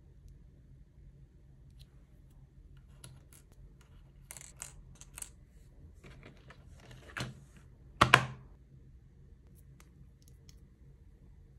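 Light clicks and taps of clear plastic nail tips and their plastic storage case being handled, with a sharper, louder clack about eight seconds in.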